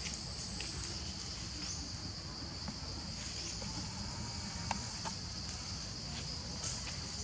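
Steady high-pitched drone of an insect chorus, unbroken throughout, with a few scattered faint clicks and rustles, the sharpest about two thirds of the way in.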